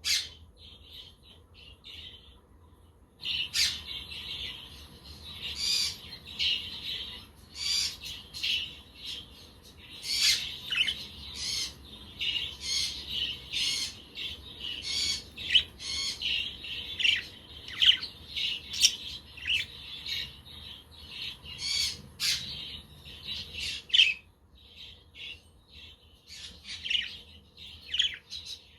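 Budgerigars (budgie parakeets) chattering with rapid high chirps and squawks. A few scattered calls give way about three seconds in to a dense, busy run of chirping, which thins out again near the end.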